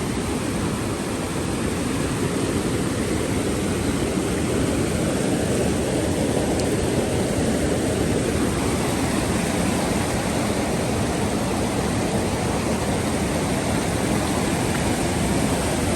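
A swollen river in flood, its fast water rushing steadily without letup.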